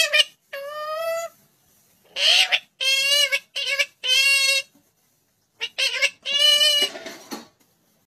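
Indian ringneck parakeet talking in a string of short, high-pitched utterances, about seven in bursts with a pause of nearly a second before the last few.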